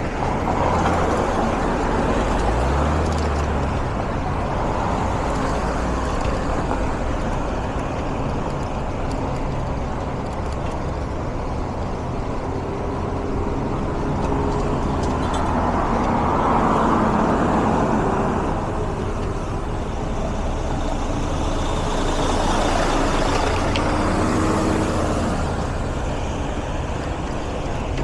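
Street traffic: car and truck engines running and vehicles passing, swelling and fading over a continuous background noise.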